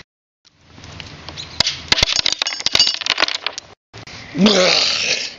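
Gravel crunching and clicking in quick, irregular ticks as a body and a wooden board shift on it. About four and a half seconds in, a loud, short vocal cry follows.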